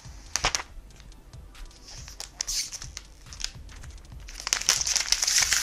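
Clear plastic protective wrap being peeled and pulled off a new iPad, crinkling in short crackly bursts that build into a continuous, louder crinkle about four and a half seconds in.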